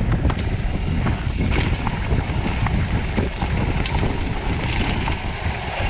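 Wind buffeting the action camera's microphone on a fast mountain-bike descent, over the rumble of a rigid mountain bike's tyres on dirt singletrack, with scattered clicks and rattles from gravel and the bike.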